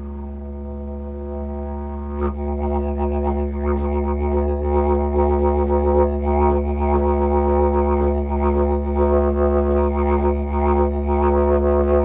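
Didgeridoo played as one continuous drone, worked for the low 'back hum' under the drone. About two seconds in it gets louder, and the upper overtones begin a quick, shifting pulse over the steady low tone.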